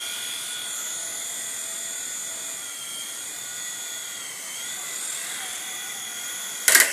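Small electric helicopter, most likely a remote-control toy, flying with a steady high-pitched motor and rotor whine whose pitch wavers slightly. Near the end a loud sudden clatter is heard as it crashes.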